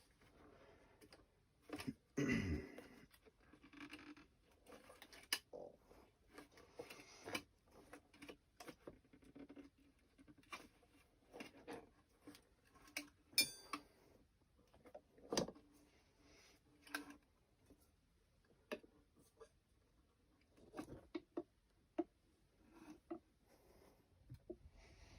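A rubber tire being worked by hand onto a scooter wheel rim: scattered scrapes, clicks and knocks, with a louder scrape about two seconds in.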